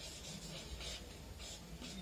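Felt-tip marker pen writing on a sheet of paper: a few short, faint scratching strokes as letters are drawn.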